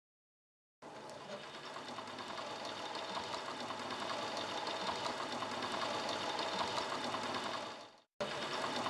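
Hand-turned wooden spinning wheel whirring steadily as its drive band turns the spindle and yarn is spun. It starts suddenly about a second in, fades out near the end, then starts again.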